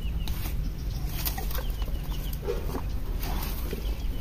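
Wind rumbling on the microphone, with birds calling faintly in the background.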